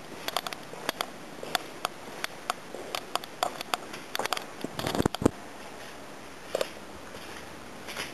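Footsteps on stone and handheld camera handling noise: irregular sharp clicks and light knocks, with a louder cluster of bumps a little past the middle.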